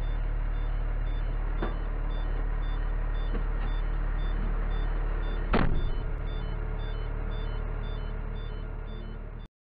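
Truck engine running steadily, heard from inside the cab, with a short high beep repeating about twice a second. A loud sharp knock comes about halfway through.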